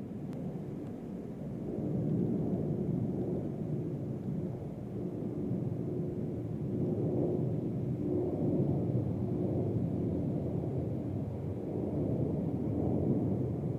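Low, steady rumble of a Boeing 767-300ER's jet engines at power, heard from a distance, growing louder about two seconds in and then holding.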